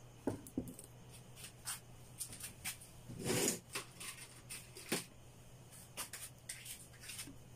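Light handling noises: scattered small taps, clicks and rustles, with one longer scuff about three seconds in, over a faint steady low hum.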